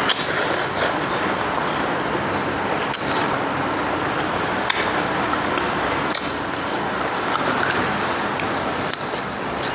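Eating sounds: a sharp click or clink every second or so, over a steady background hiss.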